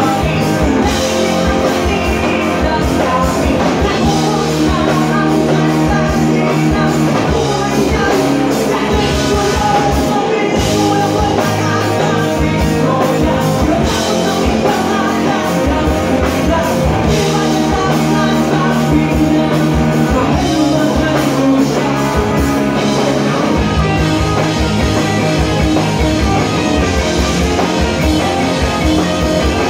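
Live rock band playing loud: electric guitars, bass guitar and drums, with a male singer.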